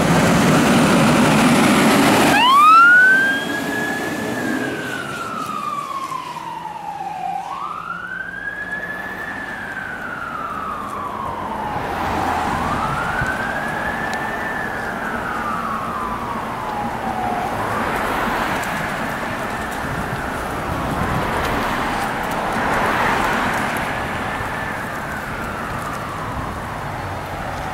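A loud diesel fire engine pulls away, then its siren starts about two seconds in and wails: each cycle climbs quickly to a high pitch and slides slowly back down, repeating about every five seconds.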